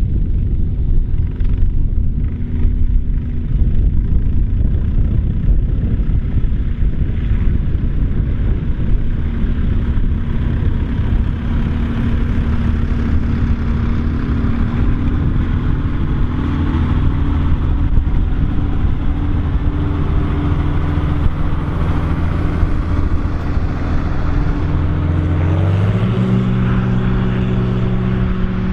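Volvo BM tractor's diesel engine running steadily under load in the field. Near the end its engine speed rises in a quick step to a higher, steady pitch.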